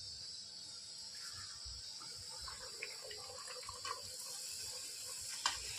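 Kachori frying in hot oil in a steel kadhai: a faint, steady bubbling sizzle, with a couple of sharp clicks near the end.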